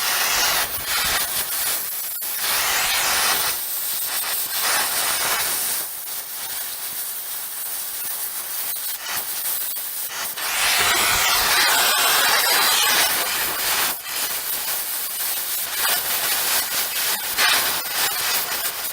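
Metal-cutting torch hissing as it cuts steel plate, going in stretches and loudest about ten to thirteen seconds in.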